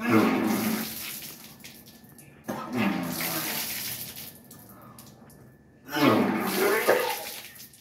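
A man retching and vomiting up the water he has just drunk, in three gushes about every three seconds: each is a gagging sound from the throat with water splashing down. This is the expulsion stage of Kunjal kriya, the yogic cleanse by self-induced vomiting.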